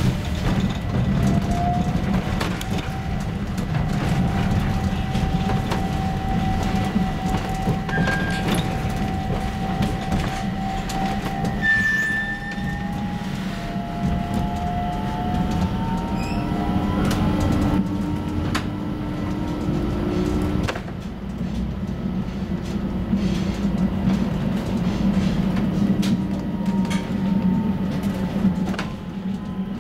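Stockholm A35 tram heard from inside the car while running: steady rumbling wheel-and-rail noise, a whine that slowly rises and falls, and scattered clicks.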